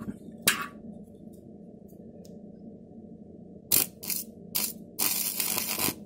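Electric arc from a homemade welder built from a UPS transformer, struck on twisted copper wire ends to weld them. It crackles in three short bursts a little before four seconds in, then crackles continuously for about a second near the end. There is a single sharp click about half a second in.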